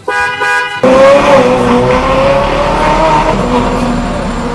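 Ferrari 812 Superfast's horn sounds for a moment, then its V12 engine is revved hard and held at high revs, much louder than the horn.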